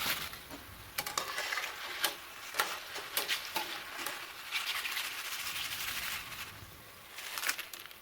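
Hot cooking oil sizzling and crackling in a frying pan, with many sharp pops and clicks, swelling and easing several times.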